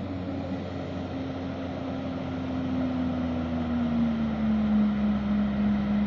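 Jet ski (personal watercraft) engine running at speed across the water, a steady drone whose pitch drops a little about four seconds in and that grows slightly louder toward the end.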